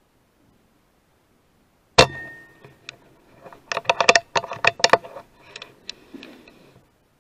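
A single sharp rifle shot about two seconds in, with a short ringing tail. It is followed by a quick run of metallic clicks and clinks, most of them about four to five seconds in.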